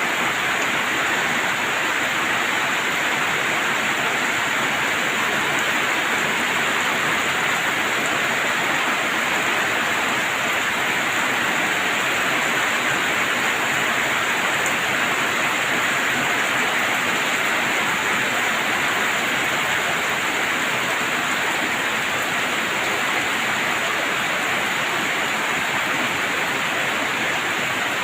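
Rain falling steadily, a constant even hiss with no let-up.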